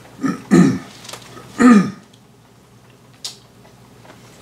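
A man clearing his throat twice in quick succession, then a brief rustle, like a page of the book he is reading from being handled.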